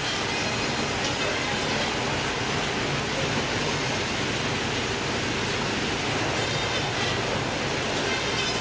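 Fish-processing machinery with conveyor belts running, a steady even hiss over a low hum.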